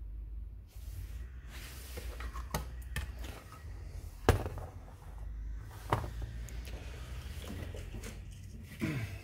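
A television power supply circuit board being handled and turned over on a workbench: scattered clicks and knocks, the loudest a sharp knock about four seconds in, over a steady low hum.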